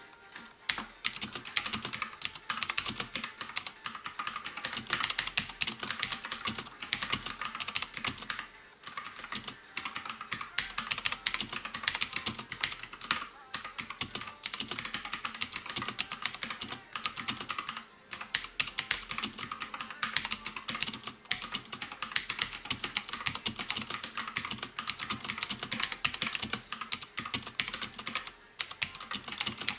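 Fast, continuous typing on a mechanical keyboard with clicky blue switches, a dense stream of key clicks with a couple of brief pauses, at about 8 and 18 seconds in.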